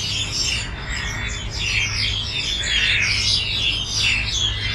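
A flock of birds in the trees making a lot of noise: a dense, continuous chorus of chirps and chatter, over a steady low city rumble.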